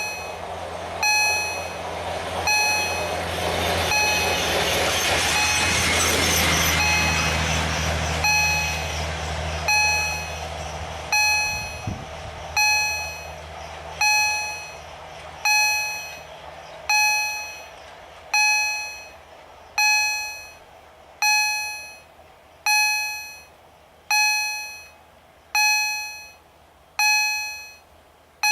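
Level-crossing warning gong from EHL-S10 electronic acoustic signal generators, striking about once every second and a half, each strike ringing and dying away. A rail vehicle passes over the crossing, its rumble swelling over a few seconds before fading while the gong keeps striking.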